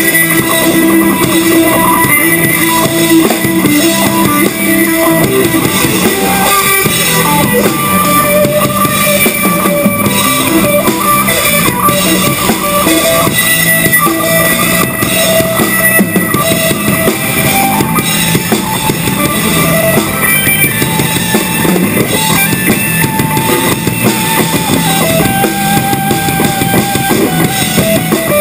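Live band playing with a drum kit and guitar, the drums keeping a steady beat under sustained guitar notes.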